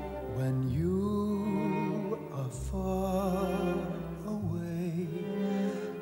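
Slow instrumental theme music with long held notes, several of them sliding up into pitch.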